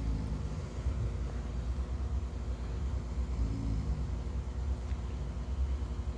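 A person snoring quietly: two soft snores about three seconds apart, over a steady low rumble.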